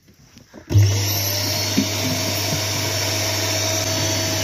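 Small bagged vacuum cleaner switched on under a second in, its motor winding up in pitch and then running steadily with a low hum and a hiss as the hose nozzle sucks dirt from a car's floor carpet.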